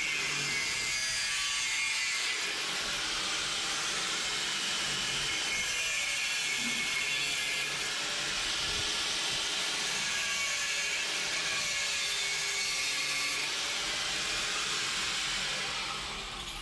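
Handheld angle grinder running and cutting through old metal water pipe fittings, a steady high-pitched grinding whine. It dies down just before the end.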